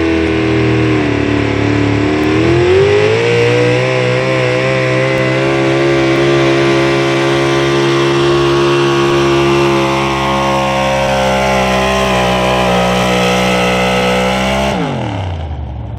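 Red Chevy pickup truck's engine running at high revs under load as it drags the pulling sled down the track. The pitch climbs a couple of seconds in, holds high and steady with a slight waver, then falls away quickly near the end.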